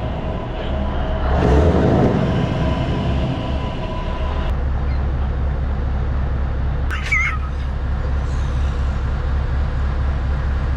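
A lorry's diesel engine idling steadily, heard from inside the cab, with a louder swell about two seconds in. A short high squeak sounds about seven seconds in and again near the end.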